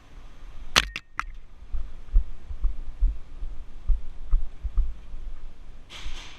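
Three quick sharp cracks about a fifth of a second apart, typical of an airsoft pistol firing. They are followed by a series of low, dull thuds, and a rustling hiss near the end.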